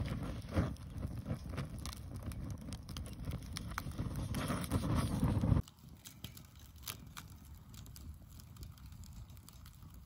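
Bamboo fire in a metal fire bucket, its flames rushing with a low rumble and crackling with many sharp pops. About halfway through, the sound drops suddenly to a much quieter bed with scattered crackles and snaps.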